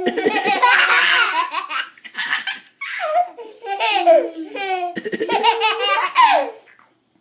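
Young child laughing hard in repeated high-pitched bursts, set off by fake coughing. Sudden noisy cough-like bursts come at the start and about five seconds in, and the laughter stops near the end.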